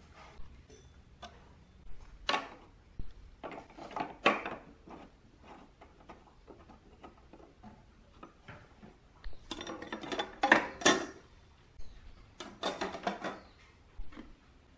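Irregular clicks, taps and rattles of hard plastic and a metal hex key as a plastic carry handle is fitted to a moving-head beam light's housing. They come in scattered clusters, busiest a little past the middle.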